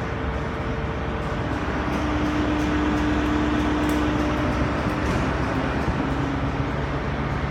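Diesel passenger train pulling away from the platform, its engines running with a steady rumble and hum whose pitch shifts about two-thirds of the way through as it gathers way.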